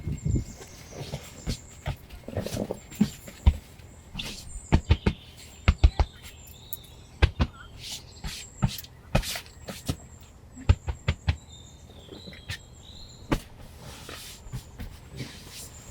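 Irregular sharp clicks and knocks, several a second at times, with a few short high bird chirps in the background.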